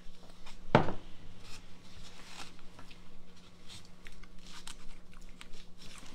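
A fork cutting into a fried tomato slice on a paper plate: light scrapes and small clicks, with one sharper knock about a second in. A steady low hum runs underneath.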